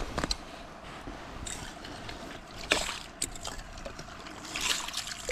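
Water trickling and sloshing at an ice-fishing hole, with a few short scattered splashes and clicks.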